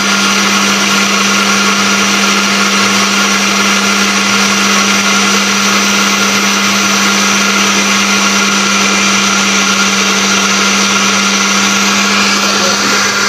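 Countertop blender running at a steady speed, puréeing broccoli soup, with an even motor hum under the whir of the blades.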